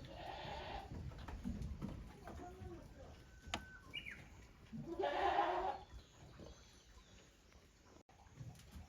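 Goats bleating: two calls, one at the start and a louder one about five seconds in.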